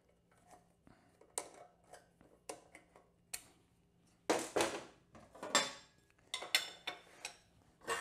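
Metal hand tools clinking and clanking: pliers working at a motorcycle's rear axle nut, and tools set down on and picked up from the lift table. The clinks come irregularly, with a louder run of clanks about four to five seconds in.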